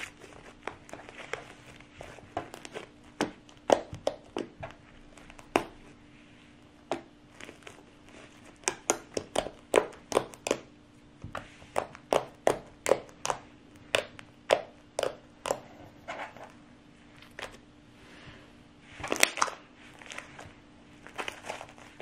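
Homemade pink slime being squeezed and poked by hand, giving irregular sharp pops and clicks, thickest in the middle and again in a short cluster near the end. A faint steady hum runs underneath.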